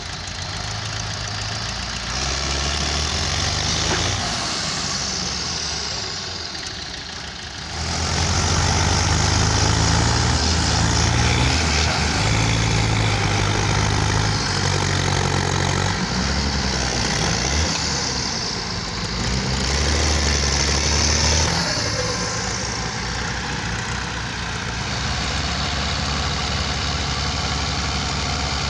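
Diesel tractor engines running under load as the tractors tow, the engine note stepping up and down.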